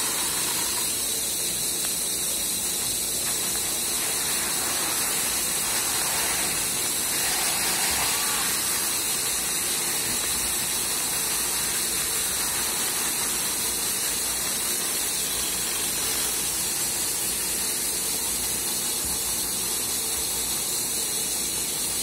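Steady hissing rush of grain pouring from a metal chute into woven plastic sacks, with the grain-handling machinery running.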